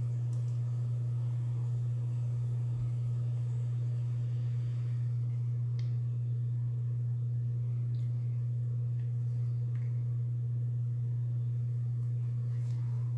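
A steady low hum that does not change, with a few faint ticks here and there.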